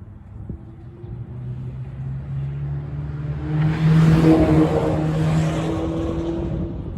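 A motor vehicle engine running with a steady hum. It swells to its loudest about four seconds in, and the hum stops shortly before the end.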